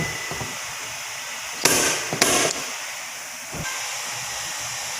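Two short, sharp hissing bursts about half a second apart, a little under two seconds in, over a steady airy hiss, from paintless dent repair work on a car body panel.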